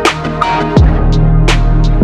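Background electronic music with a steady beat: deep kick drums that drop in pitch alternate with sharp snare hits over sustained bass and synth notes.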